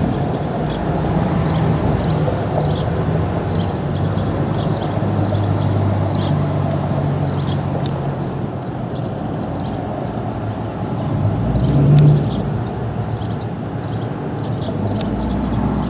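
Steady rumble of road traffic, swelling to its loudest about twelve seconds in as a vehicle passes, with small birds chirping repeatedly.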